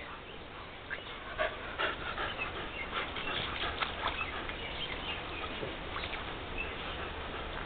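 Pit bull puppy panting and snuffling as it noses into and flops down in a shallow mud puddle, with scattered soft wet slaps and squelches of mud.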